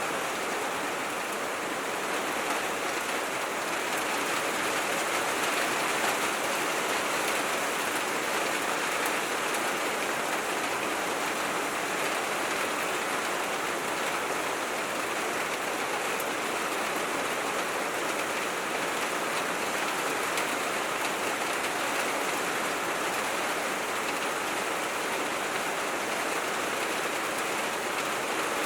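Steady rain falling on a tin roof: an even hiss with scattered drop ticks.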